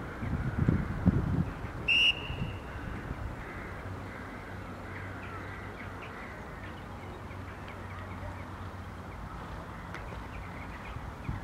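A single short, high whistle blast about two seconds in. Low rumbles of wind on the microphone come before it, and faint bird chirps come after.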